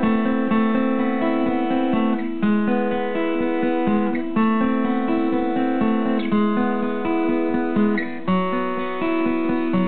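Steel-string acoustic guitar picked with a plectrum, chords played note by note in a quick rolling pattern, the chord changing about every two seconds.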